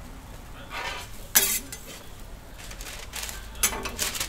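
Metal spatula clinking and scraping against a flat steel griddle at a street toast stall: a sharp clink about a second and a half in, short scrapes, and two more clinks near the end.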